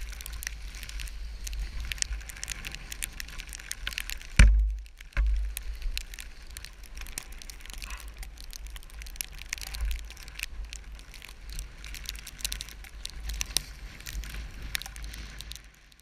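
Snowstorm wind buffeting a helmet-mounted GoPro camera: a steady low rumble with scattered crackling ticks. Two heavy thumps come about four and a half and five seconds in.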